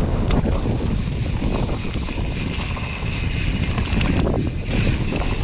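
Wind buffeting the camera microphone over the rumble of a Santa Cruz Hightower mountain bike rolling down a leaf-covered dirt trail, with a few sharp knocks and rattles from the bike over bumps.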